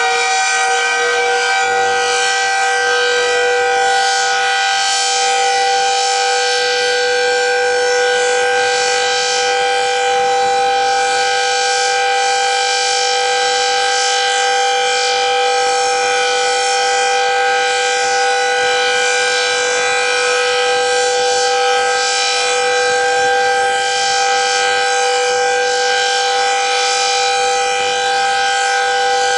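Decot Red Arrow Model 12 outdoor warning siren sounding the steady full-alert (alert) tone. It finishes winding up to pitch in the first second, then holds one loud, unbroken, steady wail.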